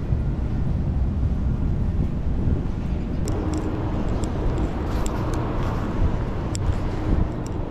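Street ambience: a steady low rumble of city traffic, with a few faint, irregular light clicks from about three seconds in.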